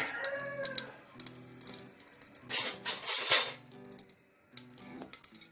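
Metal utensil clinking and scraping against a pressure cooker pot while whole spices temper in hot oil and ghee, with a louder rasping burst lasting about a second, starting about two and a half seconds in. Faint background music plays underneath.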